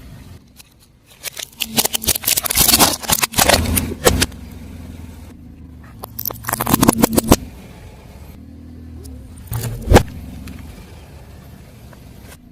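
Car tyre rolling over and crushing crunchy objects: a run of dense crackling and snapping from about a second in lasting nearly three seconds, a second shorter run around six seconds in, then a single sharp crack near ten seconds. The car's engine hums steadily underneath.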